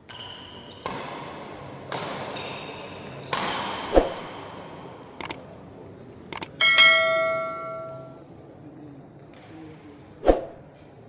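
Badminton play in an echoing hall: sharp racket-and-shuttlecock thwacks and brief shoe squeaks on the court floor. Partway through, a subscribe-button sound effect: two quick pairs of mouse clicks, then a loud bell ding that rings out for about a second.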